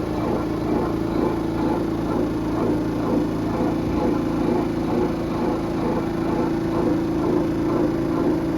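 Kuppet portable twin-tub washing machine's spin dryer running steadily at speed, a constant motor hum, while it spins a soaking-wet towel loaded to one side as an unbalanced load.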